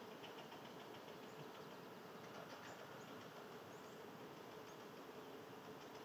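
Faint outdoor ambience: a low steady hum under a haze of noise, with faint scattered high chirps and ticks.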